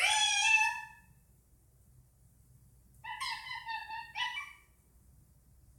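Indian ringneck parakeet giving two nasal, harmonic calls: a rising, drawn-out call lasting under a second, then after a pause a longer broken call of several short parts.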